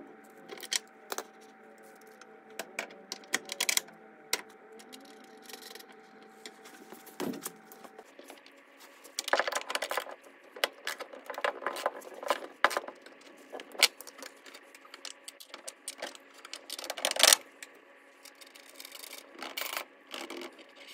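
Metal hand tools clinking and clicking as bolts are fitted under a car: a socket ratchet and spanner working on fasteners, in irregular clusters of sharp clicks, over a faint steady hum.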